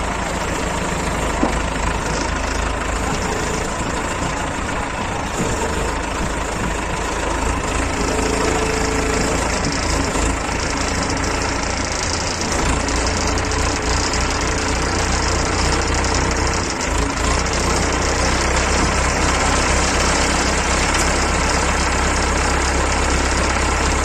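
Heavy machinery engine running steadily at a constant pace, its sound weighted deep and low.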